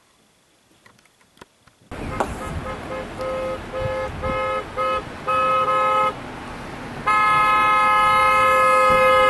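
A vehicle horn sounding over street noise: a string of short toots, then one long blast of about two and a half seconds near the end. A few faint clicks come before the street noise cuts in about two seconds in.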